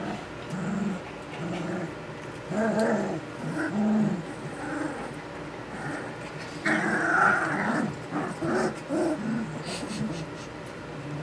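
Several Saint Bernard puppies, nearly three weeks old, growling and grumbling as they play-fight: a string of short, low little growls, with a louder, rougher outburst about seven seconds in.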